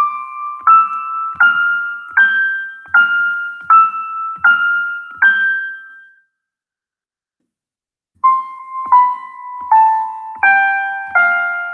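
A simple melody played one note at a time on a keyboard with a piano sound, at an even pace of about one note every three-quarters of a second. The first phrase steps upward over eight notes, then breaks off for about two seconds, and a second phrase comes in stepping downward.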